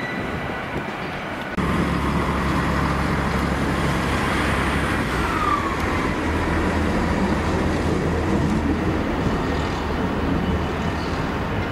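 Class 66 diesel freight locomotive's two-stroke V12 engine running with a steady low drone as it slowly approaches hauling wagons. For the first second and a half there is quieter train noise from a Class 800 unit at the platform, and a brief falling squeal comes about five seconds in.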